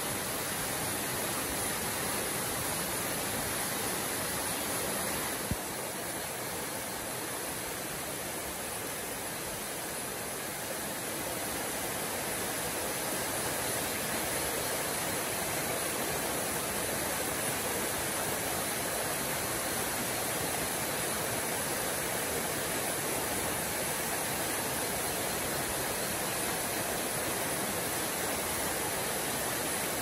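Steady night-time forest ambience: an even rushing noise with a constant high hiss on top. A single sharp click comes about five and a half seconds in.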